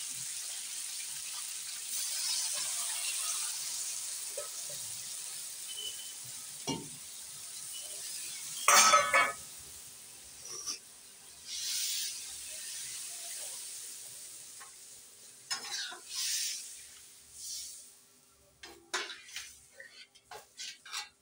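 Curry sizzling in a hot steel kadhai as puree and then water are poured in, with one loud hiss about nine seconds in and shorter hisses after it. Near the end a steel ladle stirs and clinks against the pan.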